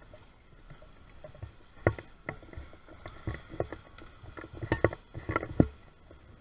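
Small waves lapping and slapping against the bank in irregular splashes, several close together in the second half.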